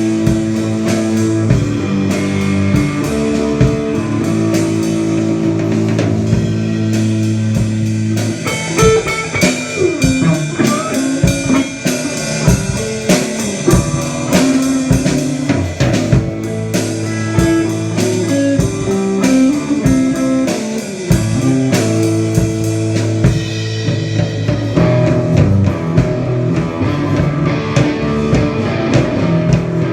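A band playing blues-rock: guitar over bass and a drum kit keeping a steady beat.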